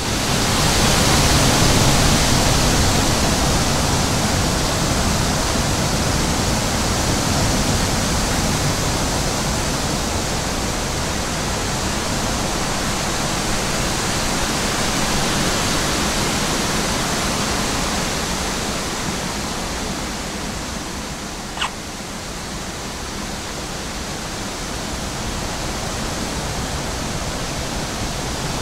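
Loud, steady rushing hiss with no pitch or rhythm, and a single short, sharp click about three-quarters of the way through.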